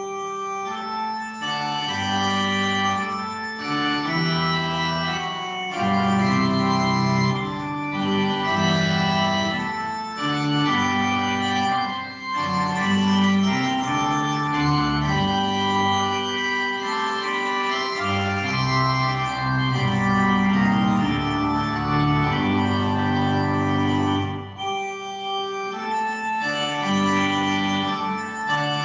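Church pipe organ playing the postlude: full sustained chords over a moving bass line, with short breaks between phrases about halfway through and again near the end.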